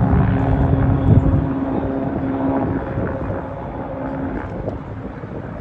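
Loud engine running past and fading away, its steady tone dropping out about three seconds in.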